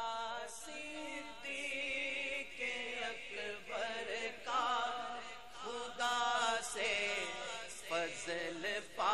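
A man's voice singing a naat into a microphone, drawing out long wavering notes in several phrases without clear words.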